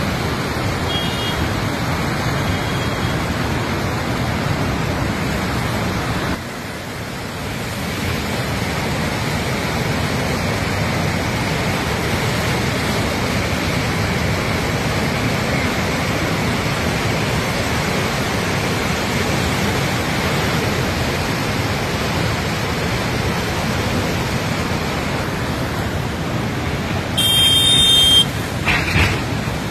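Steady rushing roar of a swollen, muddy river in flood, with a brief louder, shrill sound lasting about a second near the end.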